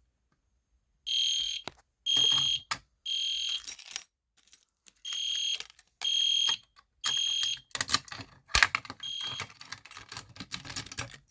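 Edwards Genesis horn strobe sounding in the temporal-3 evacuation pattern: three short, high-pitched electronic horn blasts, a pause, then three more. A flurry of clicking and rattling follows near the end, with one clipped blast among it.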